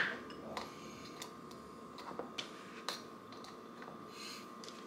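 Ice cubes dropped by hand, one at a time, into a plastic blender cup, giving sparse light clicks, the loudest right at the start.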